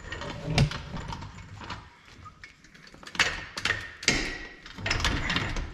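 Irregular metal clunks and knocks of a floor jack being worked into place under a trailer axle, with a few sharper knocks from about three seconds in.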